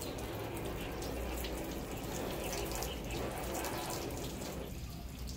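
A hose nozzle's jet of water splashing steadily onto a car's painted hood and running off it, easing briefly near the end.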